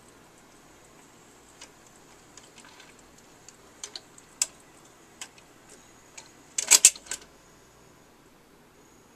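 Record changer of a 1968 Magnavox Astro-Sonic console stereo cycling and shutting off after the record ends: scattered light mechanical clicks and ticks, with a louder cluster of clacks about seven seconds in.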